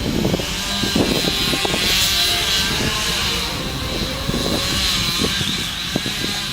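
An engine running steadily with a slightly wavering pitch, with scattered knocks underneath.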